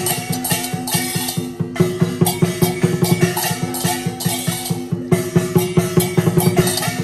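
Lion dance percussion: a drum beaten in fast, dense strokes with clashing cymbals and a ringing gong, going on without a break.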